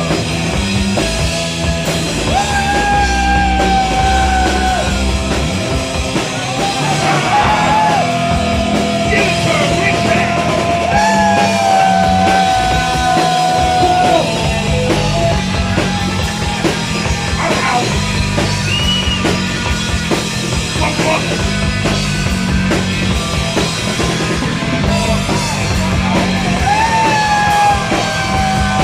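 Live rock band playing loud, with bass and drums driving a steady riff under long held lead notes that slide up into pitch and hold for several seconds each.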